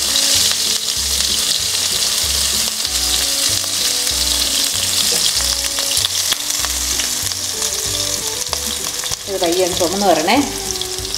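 Shallots and curry leaves sizzling steadily in hot coconut oil with mustard seeds in a large pan, frying until they turn golden-red.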